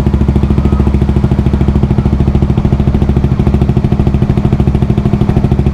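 Honda CBR150R's single-cylinder four-stroke engine idling steadily through an aftermarket Akrapovic muffler with its silencer insert still fitted, giving a full, evenly pulsing exhaust note.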